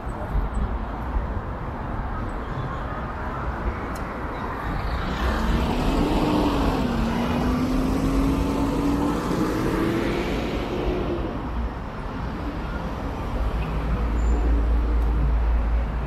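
Street traffic: a motor vehicle passes, swelling about five seconds in and fading over about six seconds, its engine note rising as it goes, over a steady low rumble.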